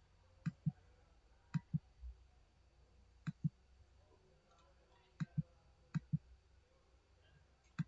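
Computer mouse clicking: six pairs of short, sharp clicks, press and release, the pairs one to two seconds apart, as keys on an on-screen keypad are entered.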